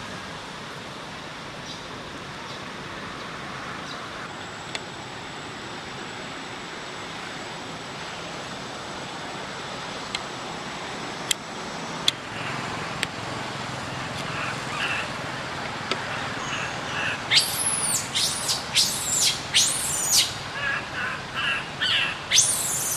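Steady outdoor ambience with a few sharp clicks, then, from about two-thirds of the way in, a bird calling loudly and repeatedly in quick, high, sweeping notes, with softer chirps beneath.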